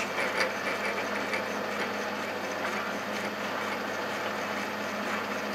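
Metalworking lathe running steadily with a low, even hum while a twist drill in the tailstock bores a pilot hole through the bronze insert of a spinning cast iron wheel, fed slowly because bronze tends to grab the drill.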